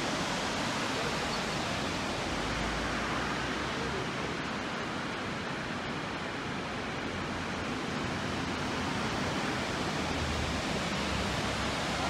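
Steady rushing of a waterfall cascading down rock, an even, unbroken wash of water noise.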